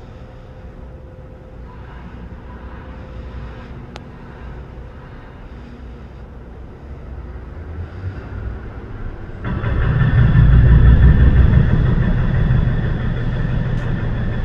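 A heavy engine running steadily. About nine and a half seconds in, a much louder, deeper engine sound comes in suddenly and stays loud, easing off only slightly.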